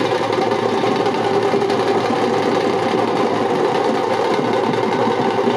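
Drums slung from shoulder straps played in a fast, continuous roll, a dense rattle of strokes with no breaks.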